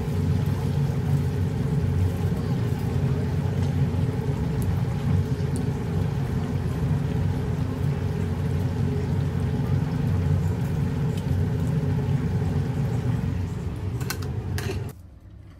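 A commercial deep fryer: hot oil bubbling and frying vigorously around chicken pieces, over a steady low rumble. A few metal clinks come near the end, and then the sound cuts off suddenly.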